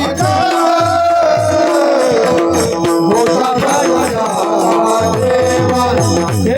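Kirtan music: a voice singing a devotional melody over steady mridang (pakhawaj) drumming whose low bass strokes slide down in pitch, with jingling hand-cymbal or rattle percussion and a held drone tone.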